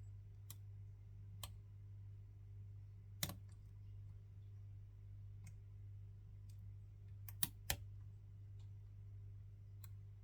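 Scattered small clicks from a lock being picked with hand tools, irregularly spaced: the loudest about three seconds in and a close pair near the end, over a steady low hum.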